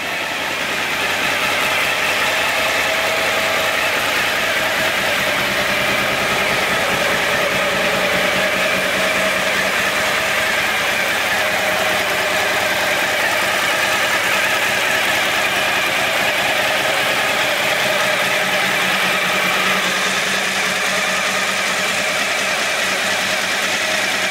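2014 Suzuki V-Strom 1000's V-twin engine idling steadily.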